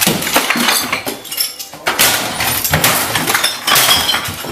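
A run of sharp crashes and clattering impacts, several over a few seconds, with bright ringing.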